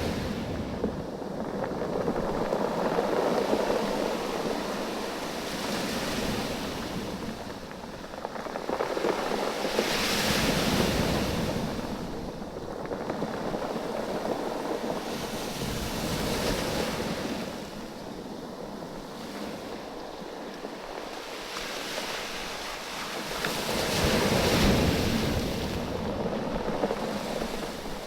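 Waves surging in and draining back over a beach of rounded oval stones, about four swells, with the stones clattering and rattling against each other as the water ebbs and flows.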